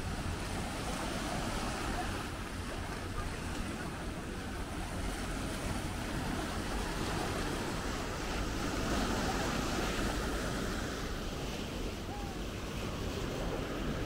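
Sea surf washing onto a beach, a steady rushing wash that swells about nine seconds in, with wind on the microphone.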